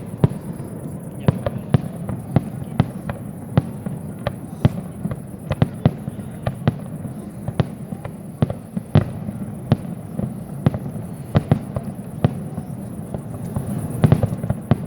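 Fireworks display: a rapid, irregular string of sharp bangs and cracks from bursting shells, over a continuous low rumble.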